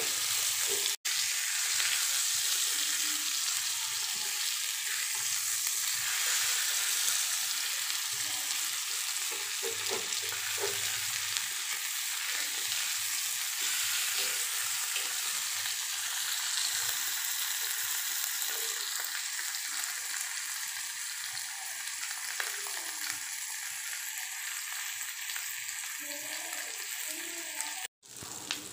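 Indian mackerel shallow-frying in oil on a flat tawa: a steady sizzle, with a metal spatula now and then scraping the pan as the fish are turned. The sound cuts out briefly about a second in and again near the end.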